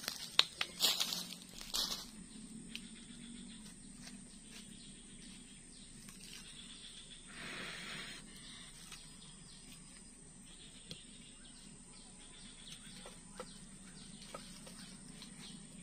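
Dry firewood sticks knocking and clattering as they are set down and arranged during the first two seconds. About seven seconds in comes one breathy blow, roughly a second long, onto the kindling to fan a new campfire. After that there are only a few faint crackles and ticks over a steady high background tone.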